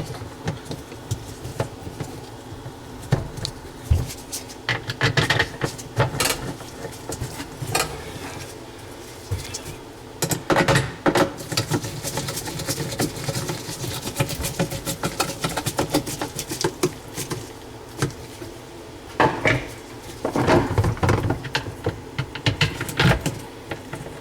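Irregular clicks, knocks and clatter of dishwasher parts being handled and refitted inside the tub, in several bursts over a faint steady hum.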